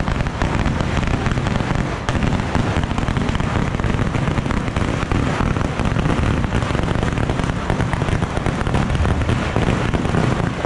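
A long string of firecrackers going off in a dense, continuous crackle of rapid pops, stopping abruptly at the end.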